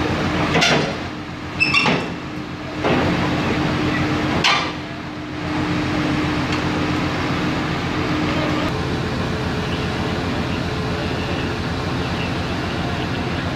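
Caterpillar 320D tracked excavator's diesel engine running under load, with a steady hum that drops away about nine seconds in. Several sharp metal clanks in the first five seconds as its steel tracks move over the steel trailer ramps.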